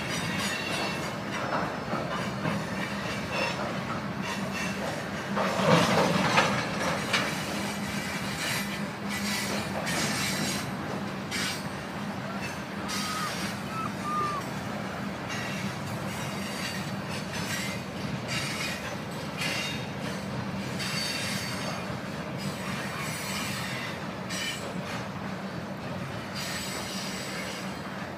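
Freight train cars (loaded centerbeam lumber flatcars and tank cars) rolling past: a steady rumble of steel wheels on rail with clicking over the rail joints, briefly louder about six seconds in, and short high wheel squeals around the middle.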